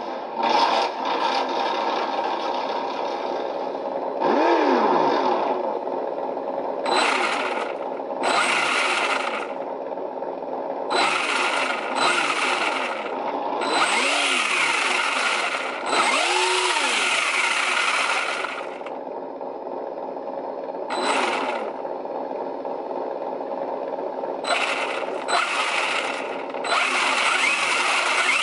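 Electronic V8 engine sound from the sound module of a Reely Dune Fighter RC buggy, played through its small speaker: a steady idle that revs up and falls back several times.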